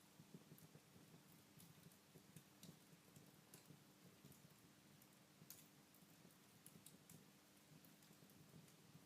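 Wood fire crackling faintly, with irregular sharp snaps and pops over a low steady hum.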